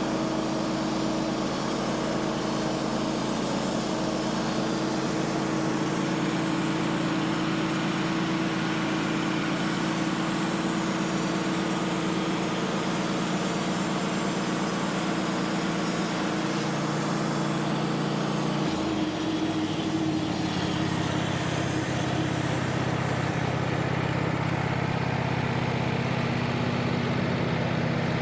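Wood-Mizer portable band sawmill running, its engine holding a steady note, with a change in the engine's pitch about two-thirds of the way through.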